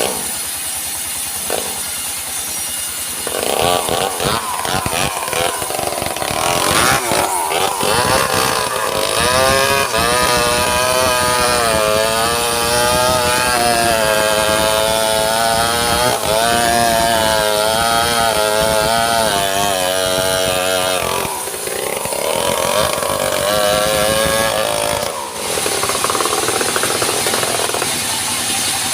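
Band sawmill cutting a teak log: the blade sings with a wavering whine through the cut over the machine's steady running, easing off briefly about two-thirds of the way in and again near the end before carrying on.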